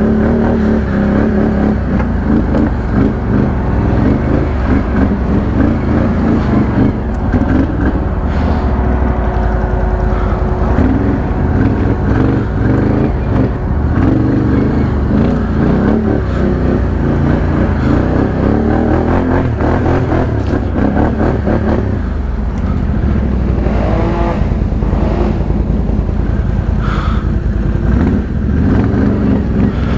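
ATV engine running under changing throttle, its pitch rising and falling as it rides over rough trail.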